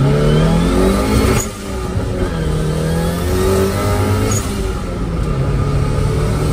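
Turbocharged Nissan 1400 bakkie's stock four-cylinder engine heard from inside the cab, revving up hard under acceleration. The revs drop sharply about a second and a half in, then climb again as it pulls.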